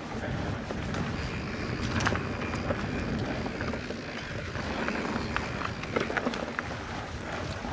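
Mountain bike riding down a dirt trail: tyres rolling over the ground, with wind rumbling on the microphone. Sharp clicks and knocks come from the bike over rough ground, the loudest about two seconds in and again about six seconds in.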